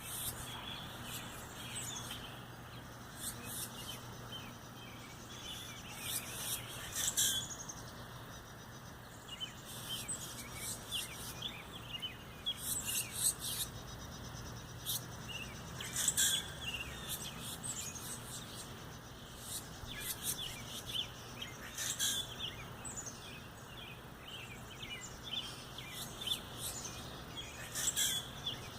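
Small birds chirping: many short, high calls at irregular intervals, bunching into louder flurries every few seconds, over a steady low hum.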